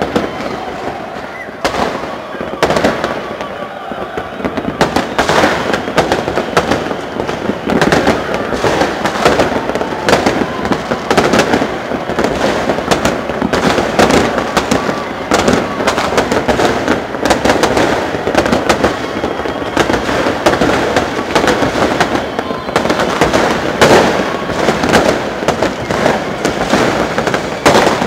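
Fireworks and firecrackers going off non-stop: a dense, irregular crackle of bangs and pops, over the voices of a crowd.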